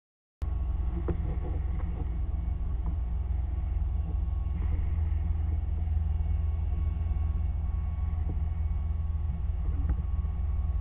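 Steady low rumble with a faint steady hum and a few light clicks, starting abruptly about half a second in.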